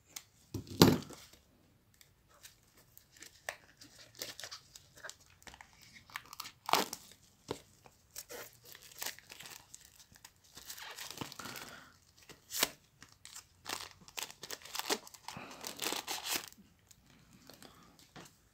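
Clear plastic shrink-wrap being cut and torn off a small cardboard earphone box, crinkling and tearing in irregular bursts, with a sharp snap about a second in.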